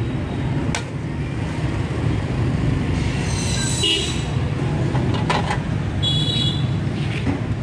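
Steady rumble of street traffic with motorbikes, broken by a couple of sharp clicks and brief high-pitched toots about three and a half and six seconds in.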